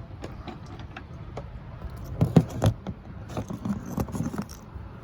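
Cut rock pieces being handled: a scatter of light clicks and knocks as stones are picked up and set down, with the loudest knocks about two and a half seconds in and a second cluster a second later.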